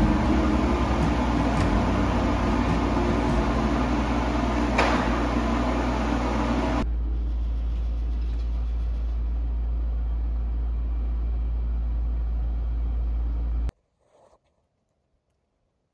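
Steady machine hum with a strong low drone. The higher hiss drops away abruptly about seven seconds in, and the hum cuts off suddenly near the end, leaving near silence.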